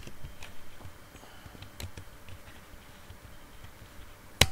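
Computer keyboard keys clicking in irregular keystrokes as terminal commands are typed, with one sharp, much louder key press near the end.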